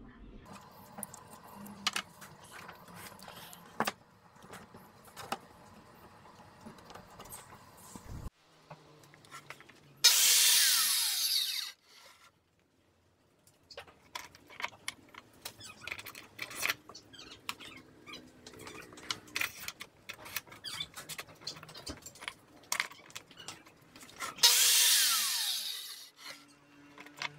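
Circular saw on a crosscut sled station started twice for about two seconds each, its pitch falling as the blade spins down after each run. These are trim cuts in the five-cut squaring method. Between the runs come light clicks and knocks of wood and the saw being handled on the rails.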